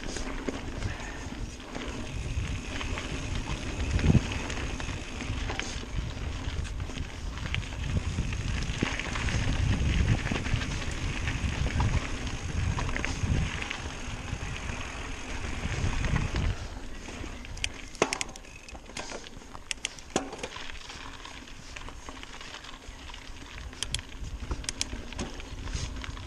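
Mountain bike on a dirt singletrack: a continuous rumble of tyres and riding noise with rattles and knocks. About two-thirds of the way through it gets quieter, leaving scattered sharp clicks and ticks.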